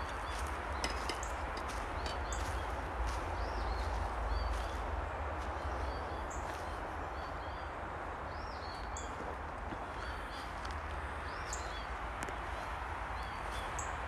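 Footsteps on a dirt woodland trail over a low steady rumble, while a small bird chirps over and over in short rising-and-falling notes.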